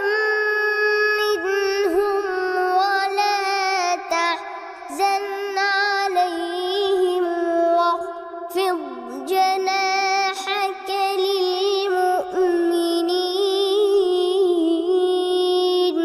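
A boy reciting the Quran in a melodic, sung style, drawing out long notes with wavering ornaments and taking a few short breaths between phrases.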